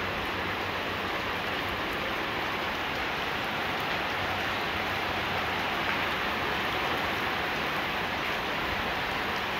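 Rain falling steadily: an even, unbroken rushing hiss with no separate drops or knocks.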